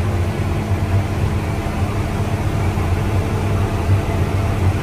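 Self-propelled crop sprayer's engine running steadily under load in second gear, a low droning hum heard from inside the cab.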